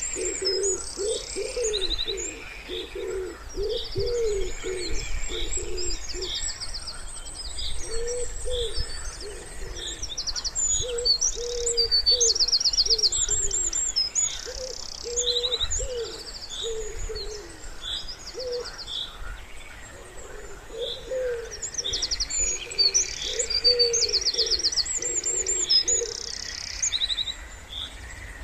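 Wood pigeon cooing in repeated phrases, with short pauses between them. Several small songbirds sing high, rapid trills and chirps over it.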